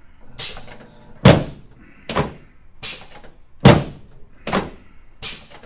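A run of seven heavy thuds from the chiropractic adjusting table under quick, repeated thrusts on the patient's right sacroiliac joint, a little under one a second.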